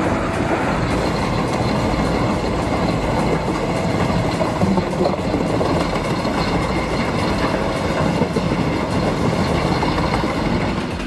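Heavy engine-driven machinery running steadily: a loud, continuous mechanical rumble.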